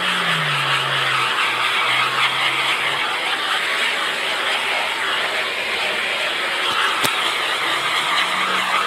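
Steady, loud rushing hiss of a propane shrink-wrap heat gun running, with a low hum underneath that drops in pitch in the first second and fades out a few seconds in. A single sharp tick comes about seven seconds in.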